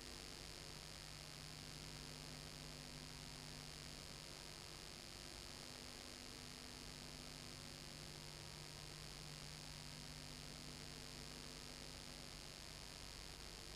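Faint, steady electrical mains hum with a constant hiss underneath. It is a bare noise floor with no other sound.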